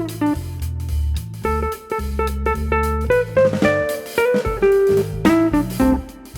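Instrumental background music: a melody of short notes over a moving bass line and a steady drum beat.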